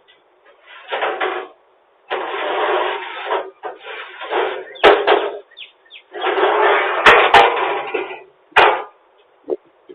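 A washing machine being handled during unloading: rough scraping and grinding in several bursts, broken by sharp bangs about five, seven and eight and a half seconds in.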